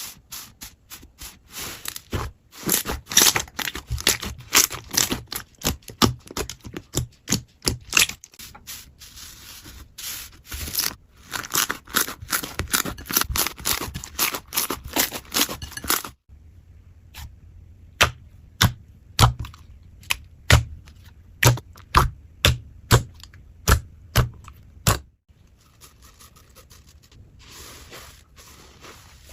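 Slime being handled: dense crackling and popping, then from about halfway separate sharp pops, one or two a second, dying down near the end.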